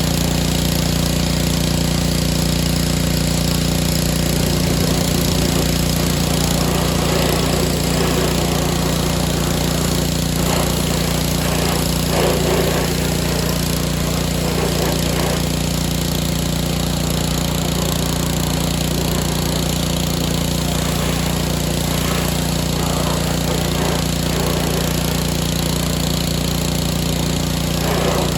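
Small gas engine of a pressure washer running steadily, with the hiss and splatter of the spray rising and falling as the jet plays over the golf cart.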